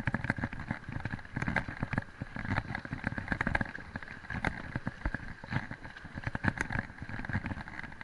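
Mountain bike riding over loose river gravel and stones: the tyres crunch and the bike rattles in quick, irregular clicks over a low, bumpy rumble.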